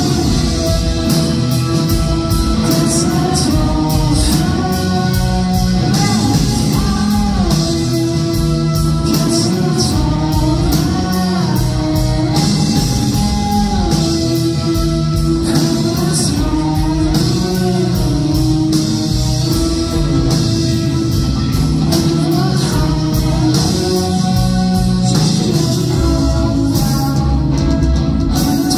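Indie rock band playing live: electric guitar, bass guitar, cello and drum kit, with a man singing.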